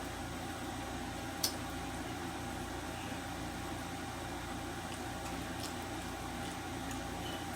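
Steady room hum and hiss, with one sharp click about a second and a half in and a few faint clicks later on, as of someone eating quietly.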